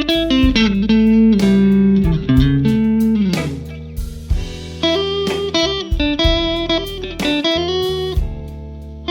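Guitar playing a melodic line of single notes, with held notes and pitch bends that slide down around three seconds in, over a steady low note.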